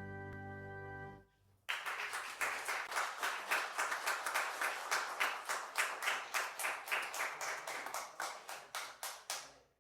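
A held final chord of the closing music cuts off about a second in; a moment later the congregation applauds. The applause stops abruptly near the end.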